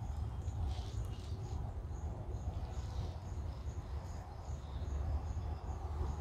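Outdoor ambience: a faint, high chirp repeating evenly about twice a second, from a small calling animal, over a steady low rumble.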